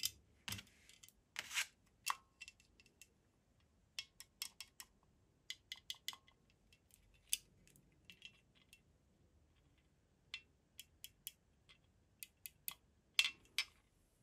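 Two metal 9 mm pistol magazines for a Springfield Echelon being handled, giving irregular light clicks and taps as they knock against each other and against the fingers. A louder pair of clicks comes near the end.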